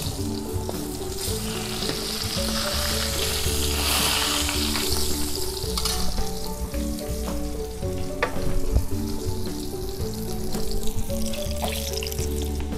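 Tongkol (mackerel tuna) sizzling as it fries in hot oil in a wok. The sizzle is strongest in the first half and weakens after about six seconds, when the fish is lifted out, with a few light clicks of the slotted spatula against the pan. Background music plays throughout.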